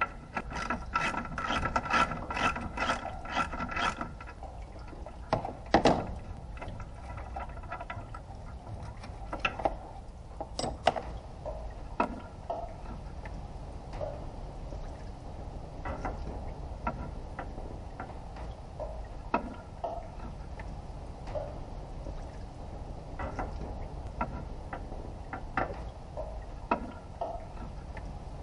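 Socket ratchet wrench clicking, a fast run of clicks for the first few seconds as a bolt is turned, then single clicks spaced out, with a louder knock about six seconds in.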